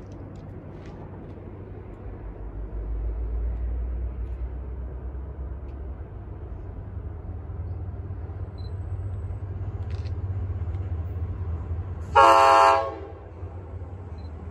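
Low rumble of an approaching NJ Transit GP40PH-2B diesel locomotive, then one short, loud blast of its horn about 12 seconds in.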